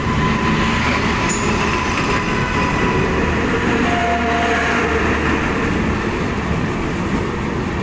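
Indian Railways passenger coaches rolling past at close range on the next track: a loud, steady rumble of wheels on rails, with a brief thin squeal about four seconds in.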